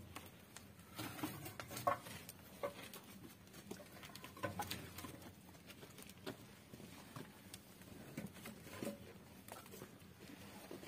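Faint, irregular light taps and clicks, scattered a few to the second.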